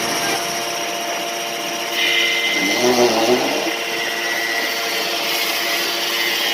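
Electric power tool running steadily, getting a little louder and higher about two seconds in.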